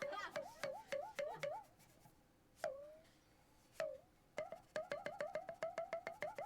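Short electronic 'bloop' notes, each a click that swoops upward in pitch. About three a second at first, then two single ones in the middle, then a quick run of about five a second near the end.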